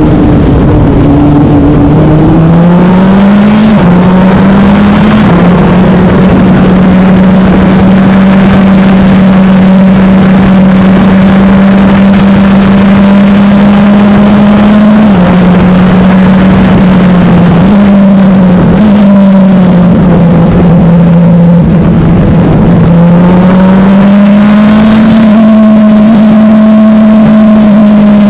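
Onboard sound of a Wolf GB08 sports-prototype race car's engine running hard and very loud. Its note climbs and then drops suddenly at gear changes, several times over.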